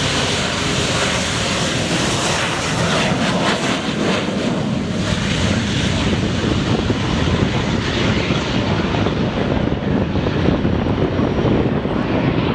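AV-8B Harrier's Rolls-Royce Pegasus vectored-thrust turbofan at takeoff power: a loud, steady jet rush through the short takeoff run and climb-out. The high hiss thins out over the second half as the jet pulls away.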